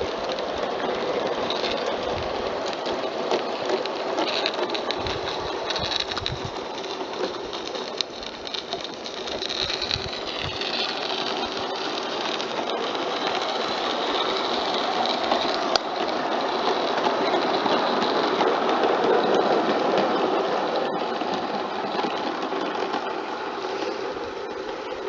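Garden-scale live steam locomotive running on its track, a steady hiss with scattered clicks. It grows louder about two-thirds of the way through, then eases off near the end.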